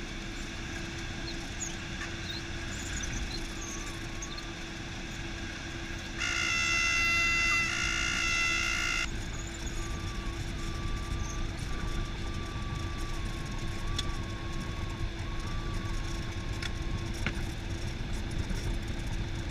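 Cessna 172's piston engine idling as the plane taxis along the runway after landing, a steady hum with a constant low drone. About six seconds in, a loud steady horn-like tone sounds for about three seconds and cuts off abruptly.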